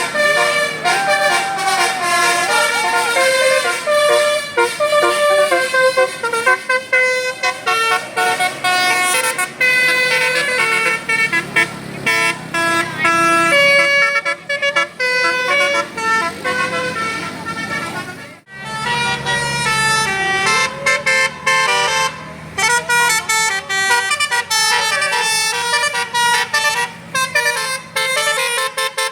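Bus telolet horns of the basuri type playing melodies: several horn tones sound together and step from note to note in a tune. The tune breaks off sharply about two-thirds of the way in, then another starts.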